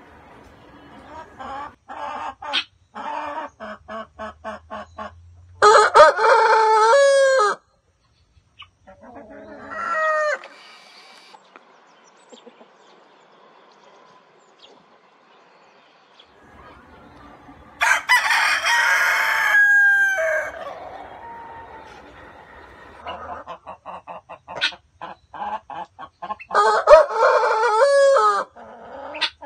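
Roosters crowing four times, each a long cock-a-doodle-doo of about two seconds. Between the crows come runs of short, quick clucks.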